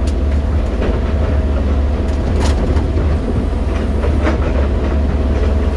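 JCB 215 excavator's diesel engine running steadily, with a rattle and a few sharp clicks or knocks.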